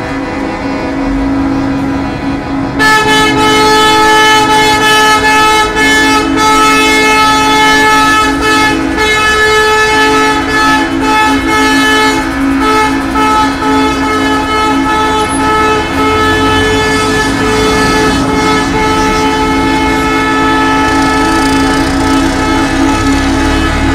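Semi-truck air horns blowing long and steady, several at once over the engines of passing semi-tractors. A louder horn chord comes in about three seconds in and holds.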